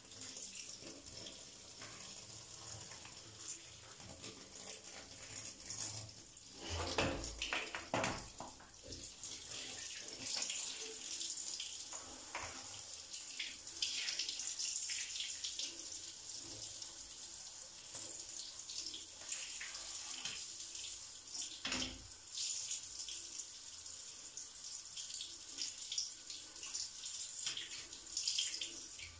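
Water running and splashing onto a wet floor as a metal mesh cooker-hood grease filter is rinsed under it, washing off degreaser foam. There are a few dull knocks along the way, the loudest about seven seconds in and again a little past two-thirds of the way through.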